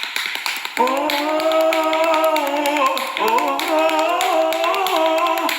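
A voice chanting a revival prayer in two long, drawn-out held phrases, over fast, steady rhythmic tapping and clapping.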